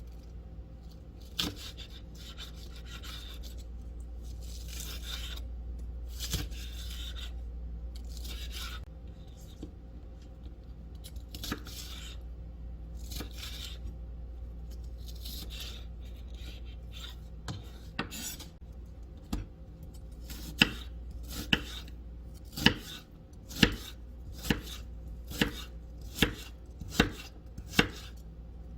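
Kitchen knife chopping food on a cutting board. Softer slicing strokes give way, about two-thirds through, to sharp knocks roughly once a second.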